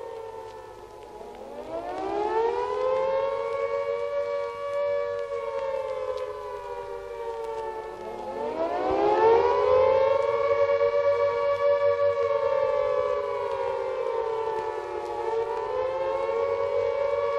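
Siren wailing on two notes at once, its pitch sliding down and then rising back up about a second and a half in and again about eight seconds in, holding high in between.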